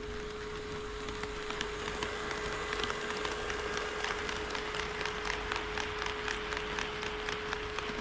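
HO-scale model train running on KATO Unitrack, its wheels clicking over the rail joints several times a second, the clicks growing louder from about a second and a half in. A steady high-pitched hum sounds underneath throughout.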